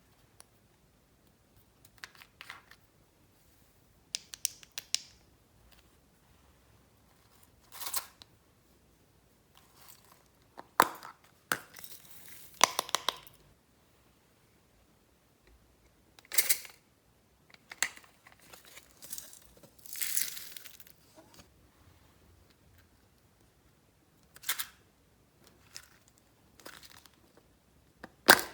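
Glossy slime being squished, stretched and folded by hand, giving irregular bursts of sticky crackles and pops with quiet pauses between them.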